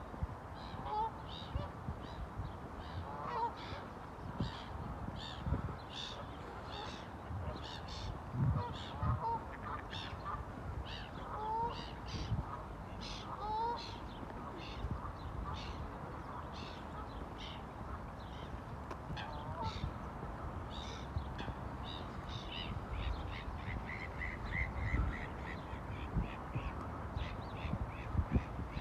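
A flock of ducks and other waterfowl calling on a pond: many short calls overlapping one another, with a low uneven rumble underneath.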